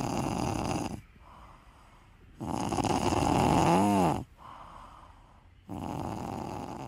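Domestic cat snoring in its sleep: three rasping snores a few seconds apart with quieter breaths between them, the middle one the loudest and ending in a short whistling squeak.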